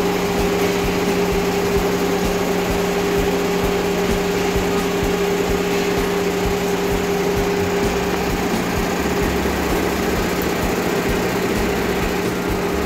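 Steady machine hum: a motor or engine running at an unchanging speed, with a constant low tone over a noisy drone.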